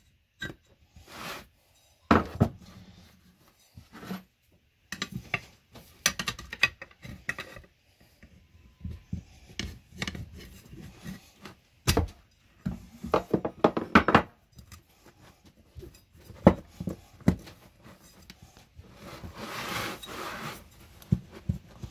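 Hand work on a small pneumatic tire and its rim: scattered metal clinks and knocks from tools, with rubber rubbing and scraping against the wheel, and a longer scrape near the end.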